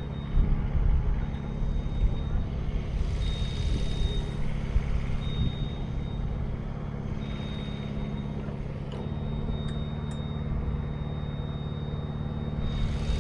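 A CMC 72HD tracked aerial lift's engine running steadily, with a high-pitched beep or tone sounding on and off.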